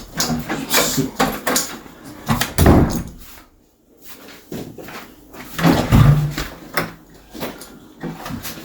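A door being handled: a series of knocks and bumps, with heavier thumps about a third of the way in and again past the middle.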